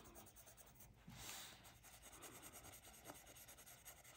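Faint coloured pencil shading on paper, a soft scratching, with one slightly louder stroke a little over a second in.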